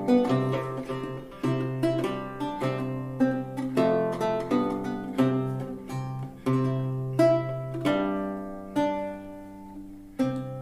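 Solo lute played with the fingers: a plucked single-line melody over sustained low drone notes, ending with a last struck chord about ten seconds in that is left to ring out and fade.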